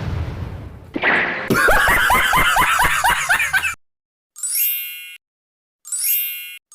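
Edited-in comic sound effects. A loud hit fades out, then comes a quick run of rising tones that cuts off suddenly about four seconds in, followed by three bright ding chimes.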